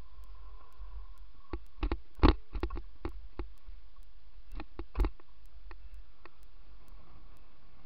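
Kick scooter wheels rolling over asphalt and concrete with a steady low rumble, broken by a quick cluster of clacks about two seconds in and a single sharp knock about five seconds in as the scooter jolts over the surface.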